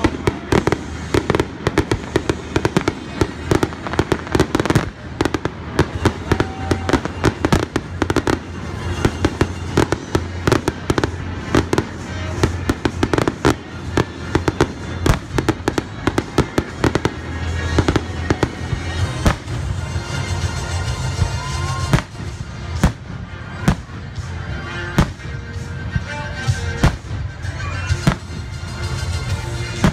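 A fireworks display: aerial shells launching and bursting in quick succession, dozens of sharp bangs close together over a steady low rumble.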